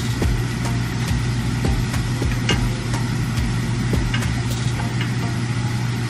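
Spatula stirring shrimp in a frying pan, making irregular clicks and taps, over a steady low hum.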